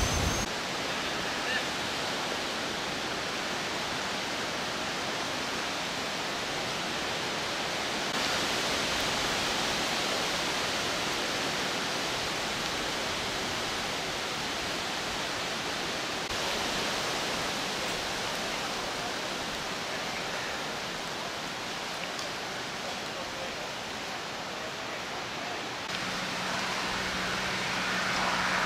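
Steady, even rushing outdoor background noise with no distinct events, stepping slightly louder or quieter a few times. A low steady hum joins it near the end.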